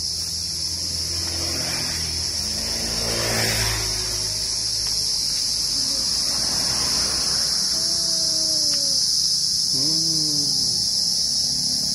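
A steady high-pitched chorus of insects drones on throughout. A passing vehicle swells and fades about three to four seconds in.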